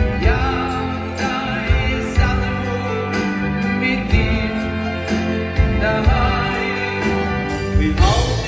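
Male vocalists singing a Jewish song live into microphones, backed by a band and orchestra with string players, over a steady beat.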